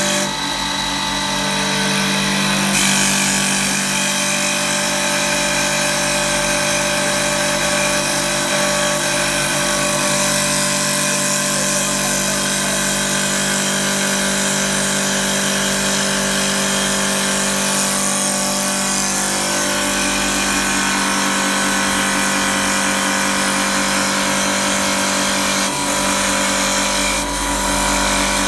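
CNC wood lathe running and turning a wooden blank: a steady motor hum with several whining tones over a hiss.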